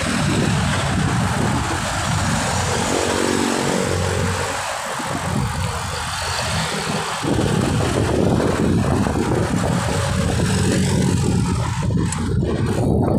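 Wind rushing over a phone microphone mounted on a moving bicycle, mixed with road traffic alongside; a faint engine note passes about three seconds in.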